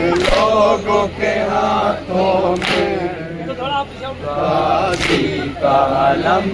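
A group of men chanting a noha, a Muharram lament, in unison, led by a male voice over a microphone. A loud slap lands about every two and a half seconds, in time with the chant.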